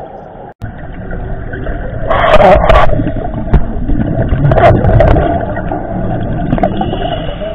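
Underwater scuba sound: a steady low rumble of water against the camera housing, with two loud hissing, bubbling surges a couple of seconds apart, like a diver exhaling through a regulator.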